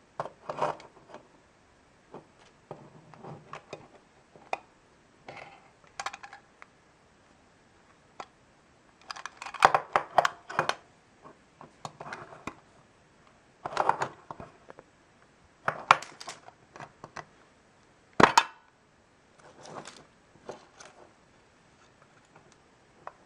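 Hands handling a small tin candy box and working its lid open: scattered metallic clicks, taps and rustles, with one sharp click late on.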